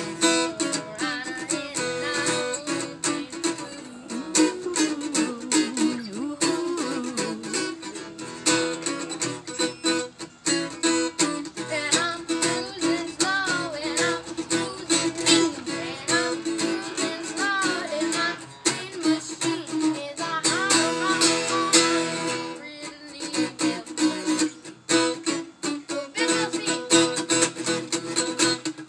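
Acoustic guitar strummed in a steady rhythm, with a voice singing along over it.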